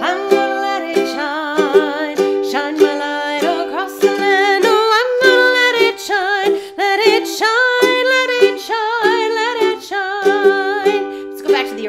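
Ukulele strummed in a steady rhythm, accompanying a woman singing with vibrato.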